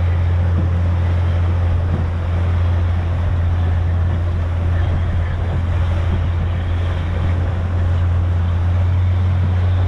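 Motorboat engine running at a steady speed, a constant low drone, with water and wind noise on the microphone.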